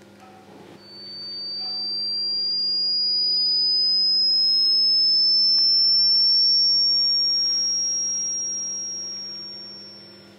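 A single pure, high-pitched electronic tone fades in about a second in. It swells, rises slowly in pitch and fades away near the end, over a steady low hum.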